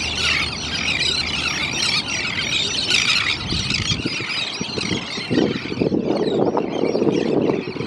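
A large flock of elegant terns calling overhead: a dense chorus of many overlapping harsh, high squealing calls. The calling thins out about five seconds in, when a low rushing noise becomes the loudest sound.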